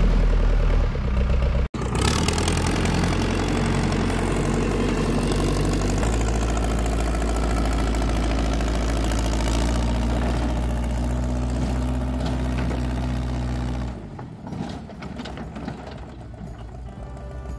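Tractor engine running steadily as the loader bucket digs out the basement, with a brief break about two seconds in and the sound dropping off to a quieter level near the end.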